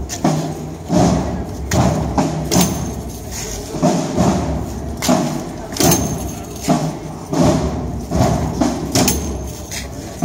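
Slow, regular processional march beat of a Roman-soldier troupe: a heavy thump a little under every second, keeping time for the marching step.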